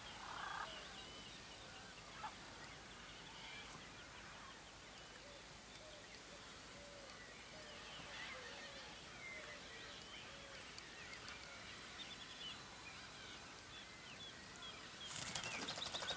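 Faint calls of many birds: scattered short chirps and whistles, with a few lower, curved calls in the middle. About a second before the end, a louder, rapid crackling noise starts.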